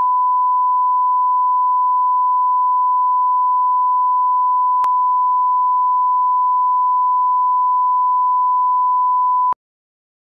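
Broadcast line-up test tone played with colour bars: one steady, loud, pure beep with a faint click about halfway through. It cuts off abruptly shortly before the end.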